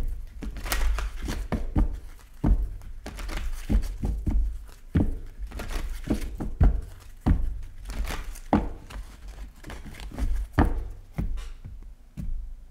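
A deck of tarot cards being shuffled by hand: the cards rustle and slap together, with frequent irregular thuds as the hands and deck knock against the desk.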